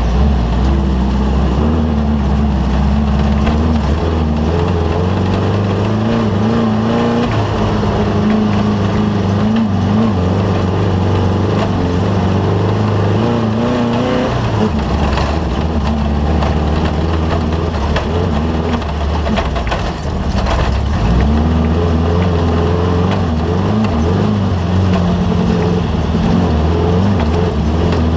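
Off-road race vehicle's engine running hard and continuously, its pitch rising and falling with the throttle, with brief drops about halfway through and again a few seconds later.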